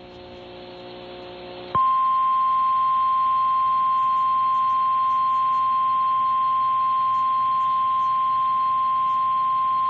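NOAA Weather Radio warning alarm tone, a single steady 1050 Hz tone heard through a Reecom R-1630 weather radio. It comes in about two seconds in, after a short stretch of receiver static with a faint hum. The tone signals that a warning broadcast follows, here a severe thunderstorm warning.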